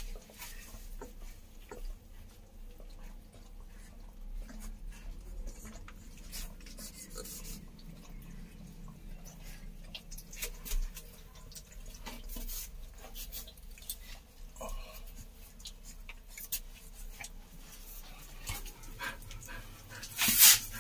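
Doberman Pinscher puppies nursing: a steady scatter of small wet smacking and suckling clicks, with a short puppy squeak about fifteen seconds in and a louder burst of noise near the end.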